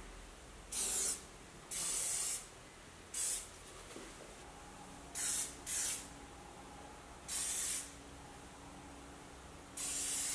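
Aerosol spray-paint can spraying paint in seven short bursts, each under a second, with pauses between.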